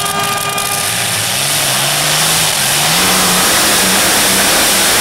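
Multi-engine modified pulling tractor running at full power down the track under load, a loud dense engine noise whose pitch wavers up and down, with the front wheels lifting. A steady horn tone sounds during the first second.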